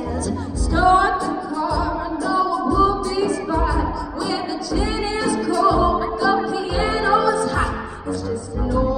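A female singer singing a solo through a handheld microphone over an instrumental accompaniment with a steady low beat about once a second.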